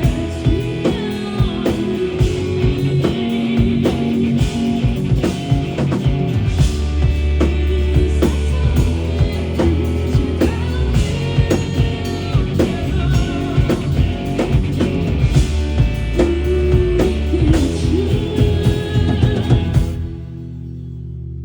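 Rock band playing live: drum kit, electric guitars and bass in a loud driving passage. The drums stop about a second before the end, leaving a low chord ringing.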